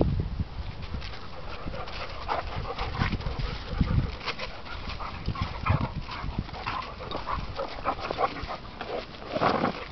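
An English pointer and a German shorthaired pointer fighting: panting and scuffling in short, irregular bursts, with a louder burst near the end.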